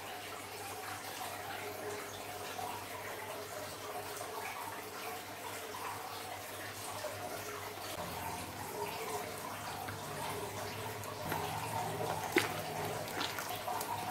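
Runny blue slime in a glass bowl, stirred with a plastic stick and then squeezed and kneaded by hand: a steady wet squelching and sloshing. A single sharp click sounds about twelve seconds in.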